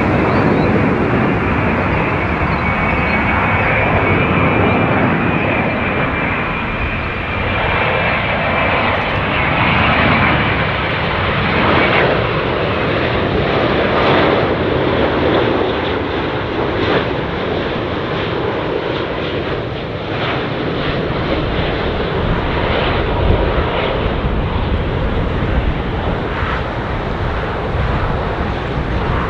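Boeing 787-9 Dreamliner's Rolls-Royce Trent 1000 jet engines during landing, a loud steady rushing roar with a thin high whine that fades over the first few seconds.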